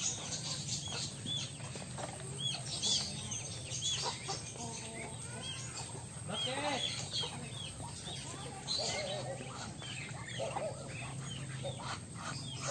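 A brood of ducklings peeping: many short, high, arched chirps overlapping all the way through, with a few lower calls from other fowl around the middle.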